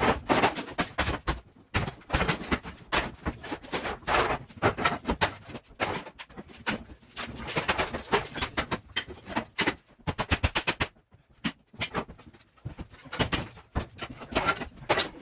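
Irregular knocking and clattering of materials being broken out and handled during interior demolition, with a quick run of knocks about ten seconds in.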